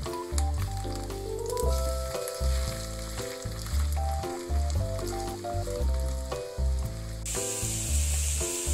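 Shredded potato and fish cake pancake frying in oil in a pan, sizzling steadily, with a spatula pressing it down. The sizzle gets louder about seven seconds in. Light background music with a pulsing bass plays alongside.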